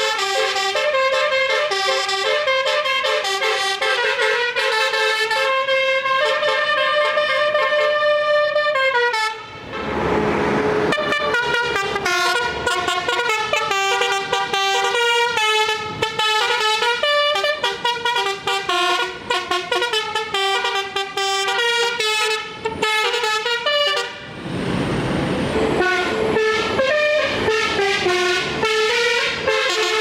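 Multi-tone basuri 'telolet' vehicle horn playing a tune, its chords of steady tones stepping from note to note. Twice a brief rushing noise cuts across it.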